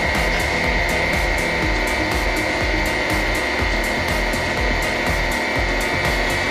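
Background music with a steady quick beat, about four ticks a second over a pulsing bass.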